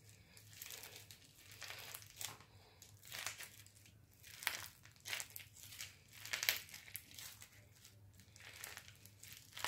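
Crunchy, over-stuffed bead slime being squeezed and worked by hand, giving faint, irregular crackling crunches several times a second.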